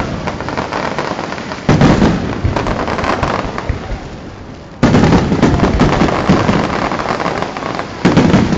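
Fireworks display: three loud shell bursts about three seconds apart, each followed by a dense crackle that fades away.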